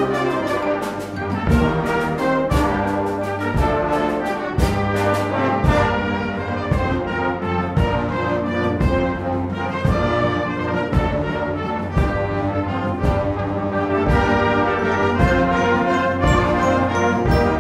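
Brass band music with a steady beat: trumpets, trombones and horns playing together.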